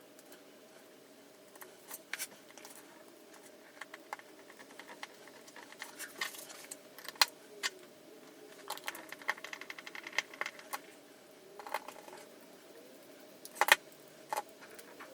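Small plastic RC kit parts being handled and fitted together: scattered light clicks and taps, with louder sharp clicks about seven seconds in and near the end.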